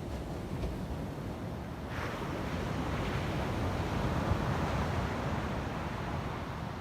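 Ocean surf: a wave breaks and washes in, swelling from about two seconds in and easing off near the end, with wind buffeting the microphone.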